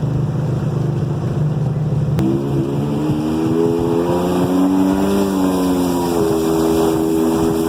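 Jet ski engine running under way; about two seconds in the throttle opens and the engine pitch jumps up and climbs, then settles and holds steady at high revs.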